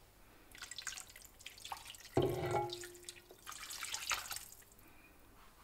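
Water poured from a glass jug into a pot of vegetables, splashing in uneven gushes as it covers them, with a single knock and a short ring about two seconds in.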